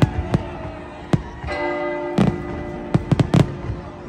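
Aerial fireworks shells bursting: about eight sharp bangs, unevenly spaced and bunched between about two and three and a half seconds in, over held musical notes.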